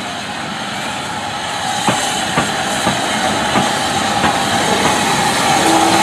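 SER Stirling 0-6-0 steam locomotive rolling slowly past, a steady hiss with its wheels clicking over the rail joints about every half second, growing louder as it comes closer.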